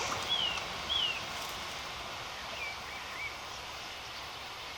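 Outdoor riverside ambience: a steady background hiss with small birds chirping, two clear chirps in the first second and a few fainter ones around three seconds in.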